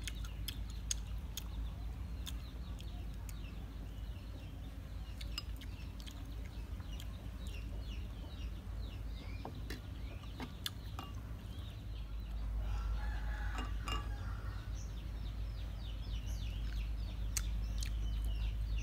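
Domestic chickens clucking and calling, with one longer, fuller call about two-thirds of the way through. Short clicks are scattered throughout, over a low rumble that grows louder after about twelve seconds.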